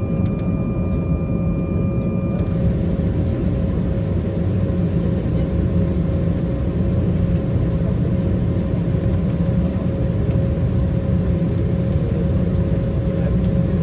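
Steady cabin noise inside an Embraer 190 during taxi: a low rumble from its GE CF34 turbofan engines with a steady hum. Two faint high steady tones cut off about two and a half seconds in.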